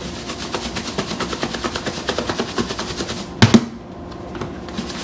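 A lidded plastic food container with catfish pieces and breading inside being shaken hard, a fast rattle of about eight knocks a second to coat the fish, then set down on the countertop with one louder knock about three and a half seconds in.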